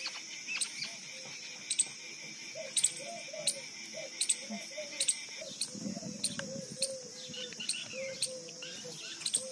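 Steady, high-pitched buzzing of insects, with a second, lower buzzing strand that stops about halfway through. Sharp short ticks repeat about once a second over the top.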